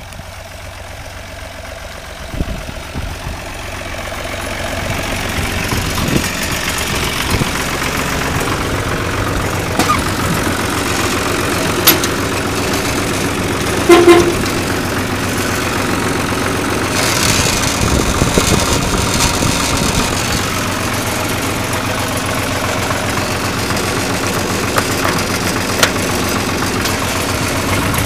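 1974 Long 350 farm tractor's diesel engine running steadily, growing louder over the first few seconds. A short, loud pitched tone sounds about halfway through.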